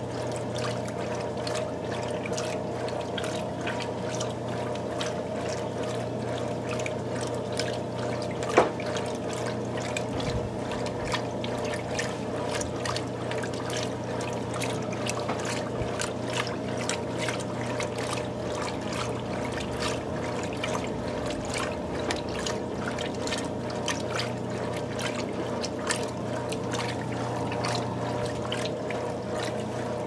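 Top-loading washing machine agitating a load of laundry in water: steady sloshing and splashing over a constant motor hum. A single sharp knock stands out about a third of the way in.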